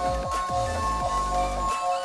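Background electronic music with a thumping bass beat under steady held high tones.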